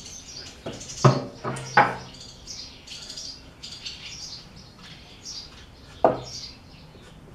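Three sharp wooden knocks as boards are handled at the table saw, two close together about a second in and one near the end. Faint high bird chirps run underneath.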